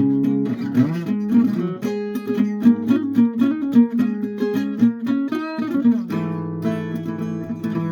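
Guitar playing: strummed chords, then a run of single plucked notes with sliding pitch, then strummed chords again about six seconds in.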